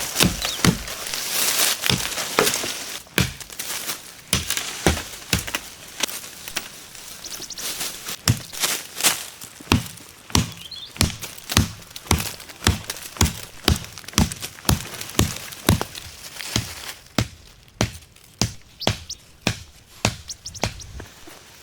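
Repeated sharp knocks of a tool striking wood, about two a second, keeping a steady rhythm through most of the stretch.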